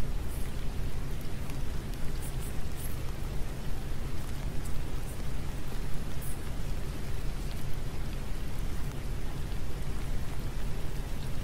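Rain falling steadily over a constant low rumble, with occasional sharp drop ticks.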